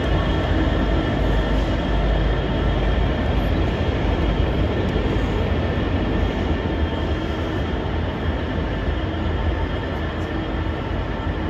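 Freightliner Class 66 diesel-electric locomotive, its two-stroke V12 engine rumbling deeply as it moves away slowly on a curve, with a steady high-pitched wheel squeal; the sound eases slightly toward the end.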